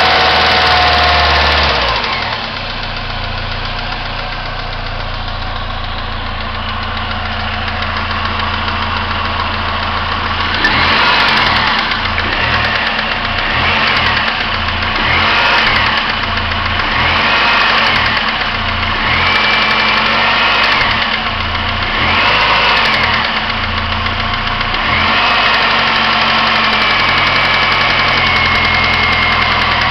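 1999 Pontiac Grand Am SE's 2.4-litre Twin Cam four-cylinder engine running warm. It settles to idle about two seconds in, is then revved up and down about every two seconds, and is held at a higher speed near the end. The owner hears an unexplained noise from it only when warm and suspects the timing chain or a rod.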